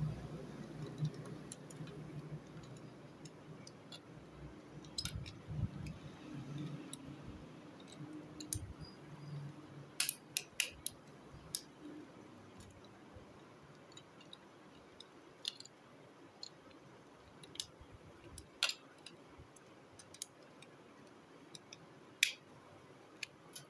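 Small plastic parts of a transforming toy robot car being folded and snapped into place by hand: sharp clicks and snaps, several close together about halfway through, then single ones, over soft rubbing and handling noise in the first half.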